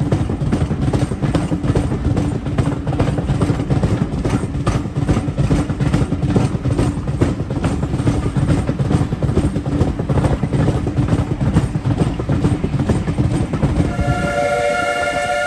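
Steam-hauled heritage train running, heard from the coach: a dense rumble with a regular beat of about three or four strokes a second. Near the end the J94 saddle-tank locomotive's steam whistle starts sounding, a steady chord of several tones, ahead of a level crossing.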